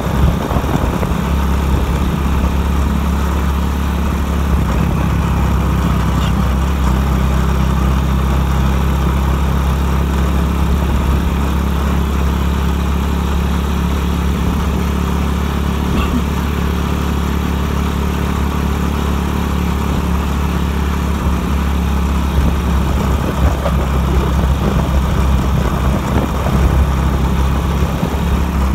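Motorcycle engine running at a steady, even speed while riding along a road.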